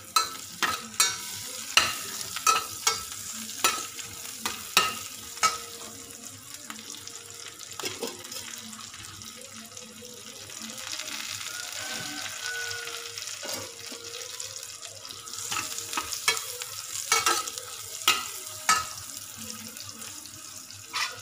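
Sliced onions and pandan leaves sizzling in a stainless steel saucepan, with a metal spatula clinking against the pan as they are stirred during the first several seconds and again briefly near the end; a steady sizzle fills the stretch between.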